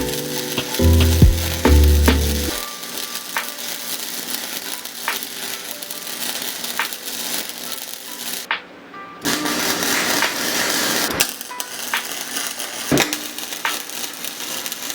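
Electric arc welding: a steady crackling, sizzling hiss with scattered sharp pops, which breaks off about eight and a half seconds in and starts again louder a moment later. Lofi music with a bass beat plays over the first couple of seconds.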